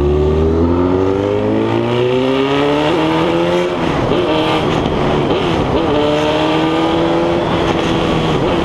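Honda CB1000R's inline-four engine pulling hard under loud exhaust: the revs climb for about three and a half seconds, drop sharply at a gear change, then climb again and level off near the end.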